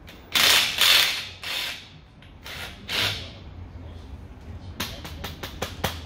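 Metal-on-metal creaks and scrapes from a shop engine hoist's hydraulic jack and ram being worked by hand, followed about five seconds in by a quick run of small metallic clicks, about six a second.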